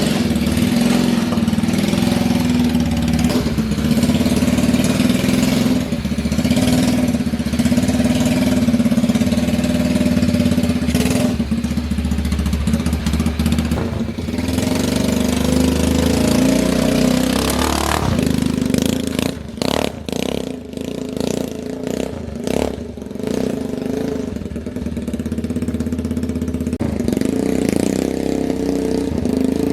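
Small 125 cc motorcycle engine of a homemade mini rock crawler running and revving during a test drive. About two-thirds of the way through the sound turns choppy and dips for a few seconds, then steadies again.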